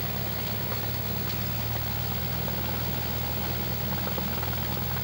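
Cessna's piston engine running at low, steady idle power while the plane taxis, a constant low hum with no change in pitch.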